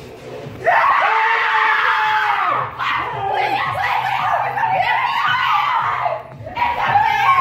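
A person screaming in fright. One long held scream starts under a second in, followed by a run of shorter shrieks rising and falling in pitch, with a fresh scream near the end.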